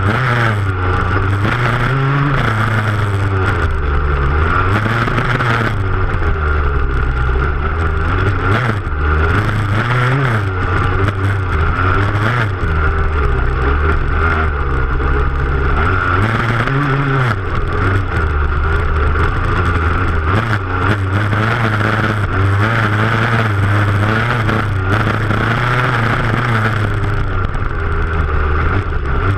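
Dirt bike engine heard close up from the rear fender, revving up and down continuously as the rider works the throttle, its pitch rising and falling every second or two.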